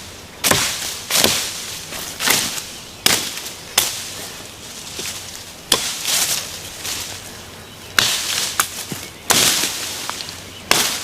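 Evansville small forestry axe chopping branches off a felled sapling: about ten sharp strikes at an uneven pace, roughly one a second, some followed by a brief rustle.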